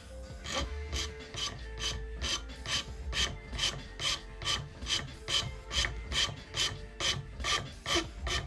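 Flat hand file worked back and forth over a tobacco-pipe workpiece clamped in a bench vise. It makes an even rasping stroke about two to three times a second, starting about half a second in.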